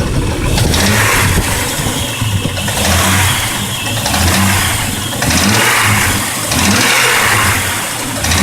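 Jeep Grand Cherokee WJ's 4.0-litre straight-six revved in short blips, about five times, dropping back toward idle between them. A clacking noise comes from the engine bay.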